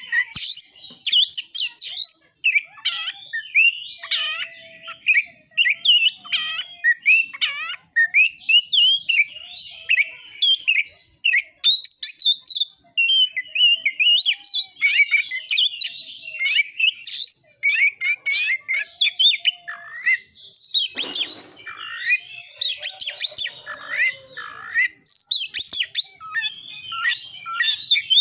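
Oriental magpie-robin (kacer) singing a fast, unbroken song of varied whistles, chirps and slurred notes, with one harsh, rasping note about two-thirds of the way through.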